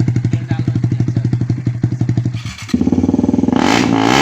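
Single-cylinder motorcycle engine with its exhaust silencer removed, idling with a rapid, even popping beat, then revved up about three seconds in.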